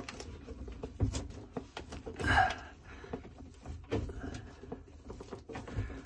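Handling noise of hands working at water hoses and fittings in a cramped boat compartment: scattered small clicks, knocks and rustles, with one louder, longer sound about two seconds in.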